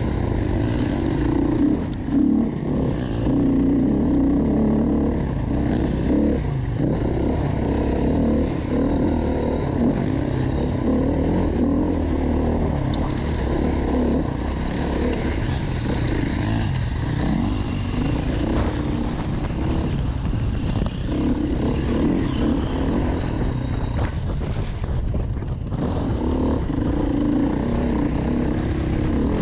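Off-road motorcycle engine running under load, its revs rising and falling continually, with a brief lull about 25 seconds in.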